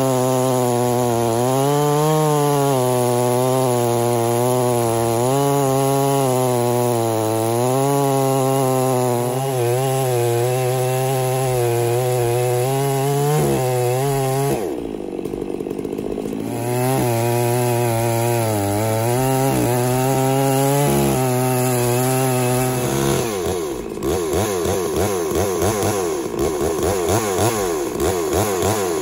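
Stihl 660 two-stroke chainsaw with a 30-inch bar running under heavy load as it rip-cuts along a big log in a chainsaw mill, its pitch wavering as the cut bites. About halfway through the engine briefly revs higher. In the last few seconds the running turns rough and uneven.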